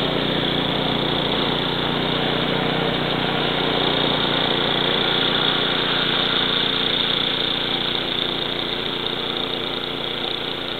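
Walk-behind petrol snowblower running steadily under load as it clears and throws snow, growing slightly fainter near the end as it moves away.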